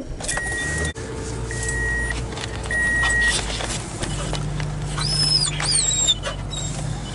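Car engine running, heard inside the cabin, with a dashboard warning chime beeping three times about a second apart in the first few seconds. Two short high squeals that rise and fall come around five to six seconds in.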